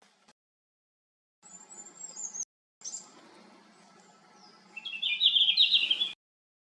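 Red-flanked bluetail singing: thin, very high whistled notes, then a loud, rapid warbling phrase about five seconds in. The audio drops to dead silence in abrupt gaps between them.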